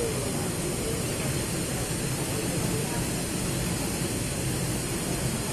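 Steady, even noise of running industrial drying equipment, with a faint voice briefly in the first second.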